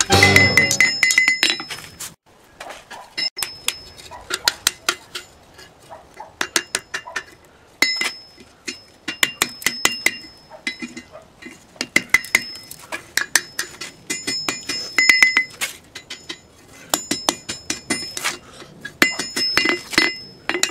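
Hand-forged rounding hammer striking a hot bar on an anvil in quick bursts of blows with short pauses between, each blow ringing off the anvil, as the bar's end is curled into a scroll. Music fades out during the first second.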